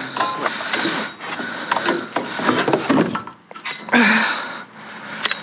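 Irregular knocks, scrapes and clatter of objects being shifted and pulled about while rummaging through a dumpster, with a louder scrape or clunk about four seconds in.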